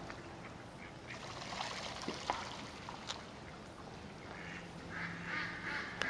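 Mallard ducks quacking: a few short sounds early on, then a quick run of repeated quacks in the last second and a half.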